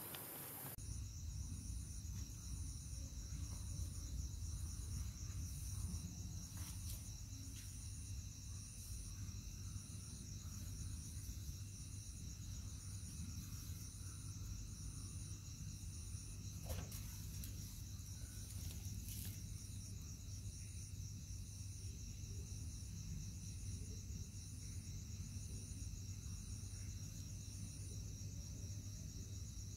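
Crickets chirping steadily: a continuous high trill with a higher note pulsing at an even pace above it, over a low steady hum.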